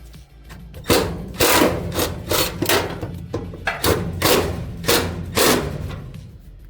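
A series of about nine sharp knocks and clunks at irregular intervals, over background music.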